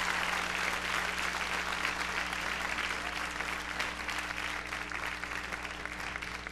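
Audience applause, a dense patter of many hands clapping, dying down gradually.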